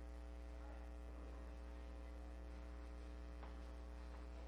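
Steady electrical mains hum with a ladder of overtones, carried on the recording's audio line, at a low level.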